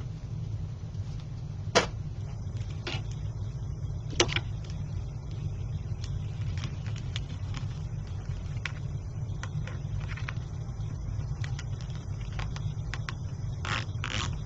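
Hands handling zip ties and loose fibre on a wreath board: two sharp clicks about two and four seconds in, lighter ticks scattered throughout and a small cluster near the end, over a steady low hum.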